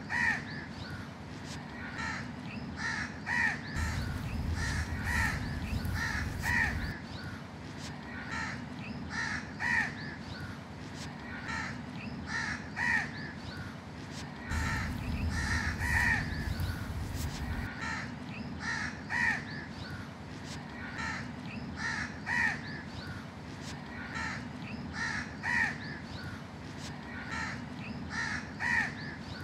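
A flock of house crows cawing: harsh, short caws from several birds, overlapping and repeating about once or twice a second.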